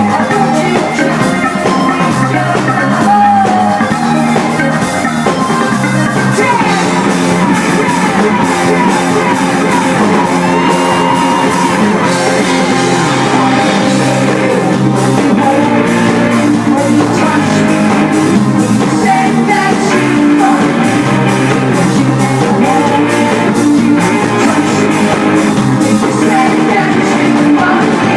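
Live rock band playing, with a drum kit keeping a steady driving beat under the instruments.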